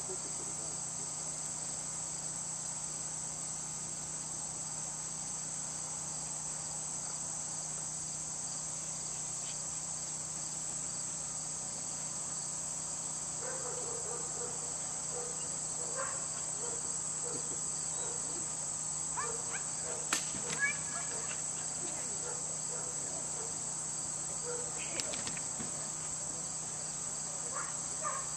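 Steady, unbroken high-pitched chorus of insects in the grass, with a couple of faint short knocks about twenty seconds in.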